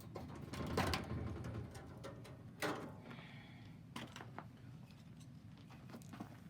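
Wood knocking and clattering at a wood-burning stove, likely firewood being handled or loaded. There is a clustered clatter about a second in, a sharper knock a little later, and a few lighter taps after that, over a low steady rumble.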